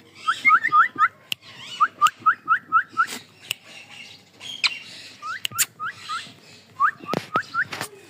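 Cockatiel giving four quick runs of short, rising whistled chirps, about five notes to a run, with a few sharp clicks in between.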